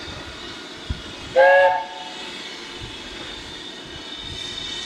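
Standing steam locomotive hissing steadily, with one short whistle blast about one and a half seconds in that rises into its note.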